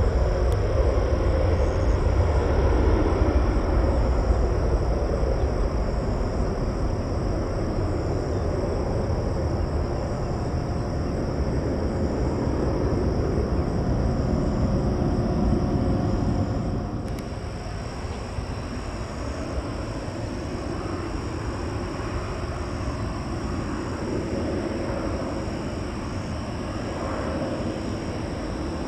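Jet airliner engine noise at an airport: a steady broad rumble, loudest at the start, that drops to a lower level about two-thirds of the way through.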